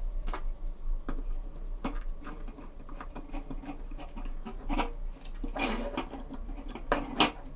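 Hex driver and nut driver working M3 screws and nyloc nuts into a carbon-fibre frame: scattered light metal clicks and scraping of tool tips on the fasteners, with a busier patch of clicking about two thirds through and the sharpest clicks near the end.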